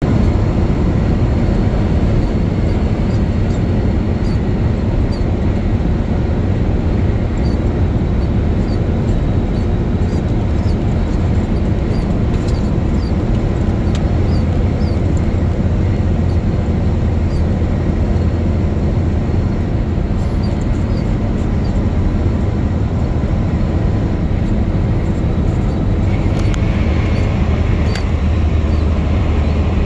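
Steady engine and road noise heard from inside a moving vehicle's cab at highway speed, a constant low drone. Near the end the low drone drops slightly in pitch.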